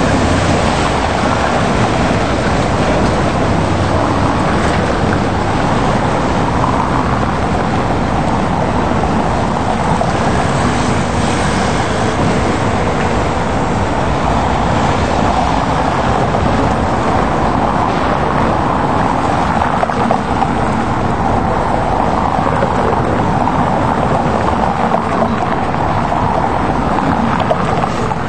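Steady noise of city street traffic, heavily mixed with wind buffeting the microphone. Near the end a tram running on the rails comes close.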